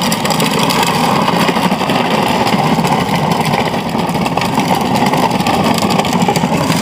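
Kids' ride-on truck converted to RC, driving on its 2150kv brushless motor: a steady, loud running noise of motor, gearing and wheels rolling over the ground.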